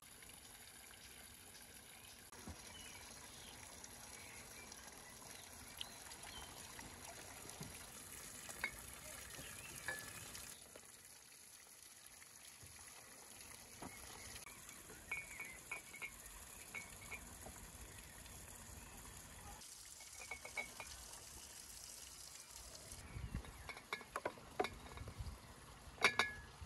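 Faint steady hiss of running water with scattered light clicks and a few brief high chirps. Near the end comes a quick run of sharper glass clinks as red currants are dropped into glass bottles.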